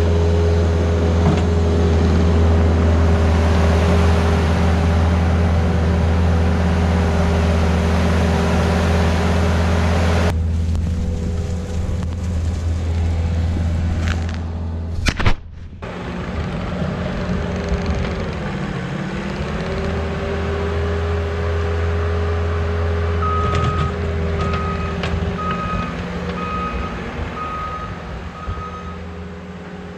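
Case skid steer engine running steadily, its pitch dipping briefly and recovering about two-thirds of the way through. Near the end its reversing alarm beeps about seven times, a little under once a second.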